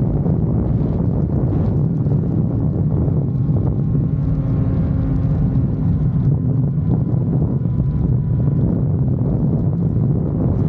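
Honda CBR650R inline-four engine, through a Mivv GP Pro aftermarket exhaust, running at a steady pace while riding, with wind rushing over the microphone.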